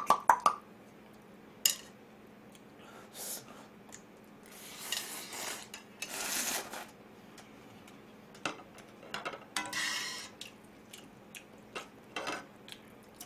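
Eating sounds: several loud slurps of ramyun noodles and broth from a small plate. Chopsticks click now and then against the plates and the metal pot.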